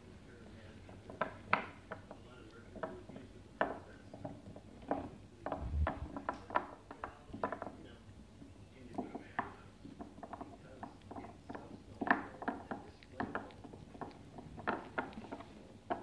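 A papillon dog gnawing on a hard chew, with irregular crunches and clicks of its teeth on the chew, and one low thump a little before six seconds in.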